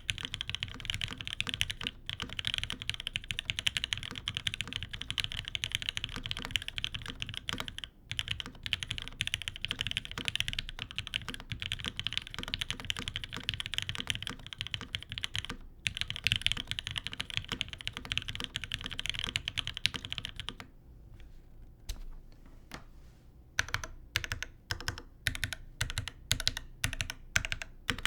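Custom GSK 910 mechanical keyboard with lubed Gateron Ink linear switches in an aluminium top-mount plate and GMK keycaps, typed on quickly and steadily. About two-thirds of the way through the typing stops for a few seconds with only a couple of clicks. It then picks up again as slower, separate keystrokes, about two or three a second.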